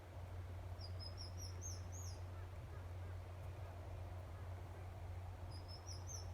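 Small bird chirping: a quick run of about six short, high, rising chirps about a second in, and another run near the end. A steady low hum runs underneath.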